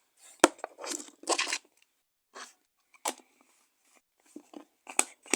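Slime being squished and stretched by hand, with three sharp pops spread through and a short stretch of crackly squishing about a second in.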